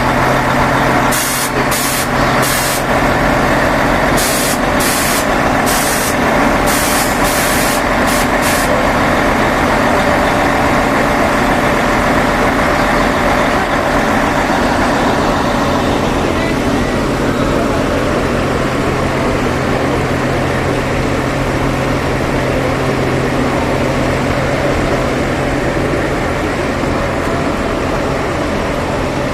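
Heavy truck diesel engines running steadily, with a quick series of about eight short air hisses, like air-brake releases, in the first several seconds.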